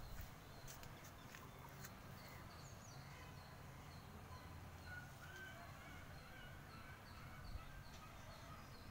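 Faint outdoor ambience: a small bird chirping over and over in short high notes, with a few lower calls midway, over a low rumble.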